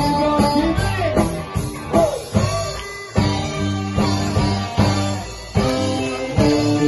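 Live band playing: strummed electric guitar over a drum kit keeping a steady beat.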